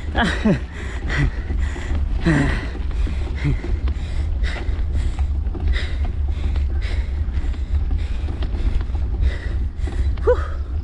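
Wind buffeting the action camera and tyre rumble from a mountain bike rolling downhill over rough, cracked pavement, with frequent short rattles and knocks as the bike jolts over the bumps.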